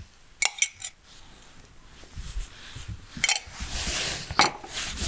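A metal spoon clinks against a small glass jar while stirring a chalk paste: three quick clinks in the first second and another about three seconds in. After that comes the rustle of a cloth being rubbed, with one more click.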